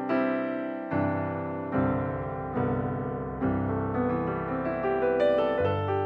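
Background piano music: gentle chords struck at an even pace, a little less than a second apart, each ringing and fading before the next.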